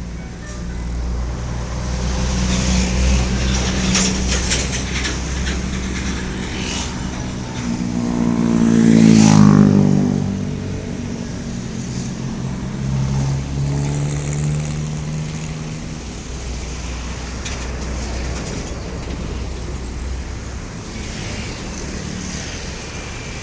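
Large buses running, with one bus driving past close: its engine note swells and drops in pitch, loudest about nine seconds in.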